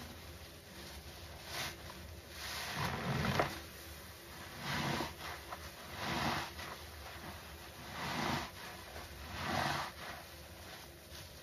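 Wet squelching of a suds-soaked red foam sponge squeezed in gloved hands, about five squeezes roughly a second and a half apart, the longest near the start.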